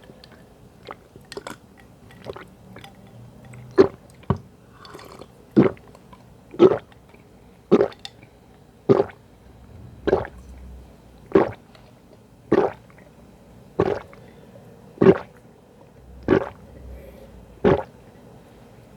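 A person gulping juice down in steady swallows, about a dozen gulps roughly one every second and a bit, starting a few seconds in after some small mouth clicks.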